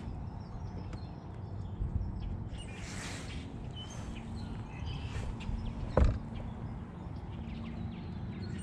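Open-air ambience on a fishing boat: a steady low rumble with a faint hum, scattered small bird chirps, and a single sharp knock about six seconds in.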